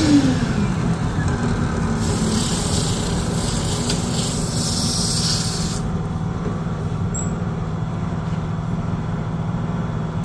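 Electric motor of a drill press rigged as a lathe winding down, its pitch falling over the first second, with a steady low hum continuing under it. A hiss rides along and stops about six seconds in.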